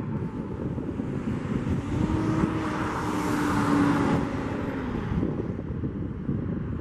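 Gusty wind buffeting the microphone with a constant low rumble, while an airliner's jet engine noise swells into a rushing hiss with a steady whine, loudest about three to four seconds in and fading away after about five seconds.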